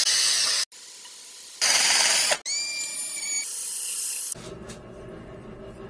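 A flap wheel in a power tool sanding out the inside of a pipe elbow: two loud bursts of gritty, hissing grinding about a second apart. Then the tool whines at a steady high pitch as it spins freely, and it stops about two-thirds of the way through.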